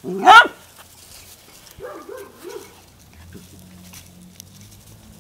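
Puppies at rough play: one very loud, high yelp that climbs in pitch right at the start, then a quick run of three shorter, lower yips about two seconds in. A faint low hum follows.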